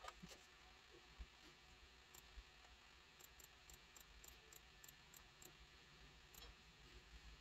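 Near silence: faint room tone with scattered, irregular light clicks of a computer mouse as items are selected.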